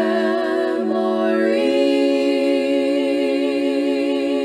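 Unaccompanied female voices singing in close harmony. They step through two quick note changes and then hold a long final chord with a gentle vibrato.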